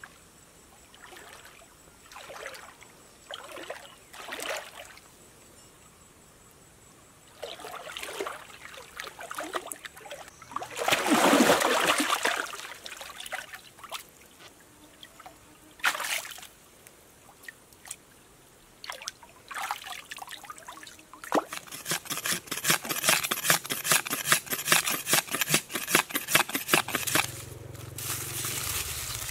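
Stream water splashing and sloshing in separate bursts as a person wades and reaches into it, the loudest splash about eleven seconds in. Later a dense run of rapid crackles lasts several seconds, followed by a low hum near the end.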